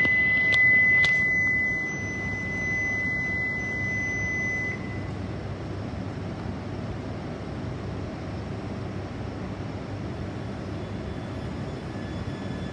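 A steady high-pitched tone held for about four and a half seconds, with two sharp clicks about a second in, over the steady low rumble of a Shinkansen train at the platform.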